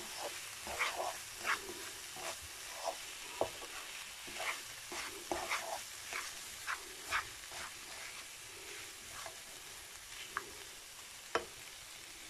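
Onion, cabbage and green peas sizzling in a frying pan while a plastic slotted spatula stirs and scrapes through them. The scraping knocks come every half second or so at first, thin out later, and one sharper tap comes about eleven seconds in.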